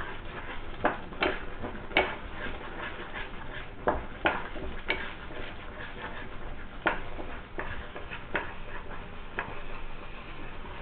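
A spatula stirring thick, cooking semolina dough in a nonstick frying pan, knocking and scraping against the pan in about ten irregular clicks.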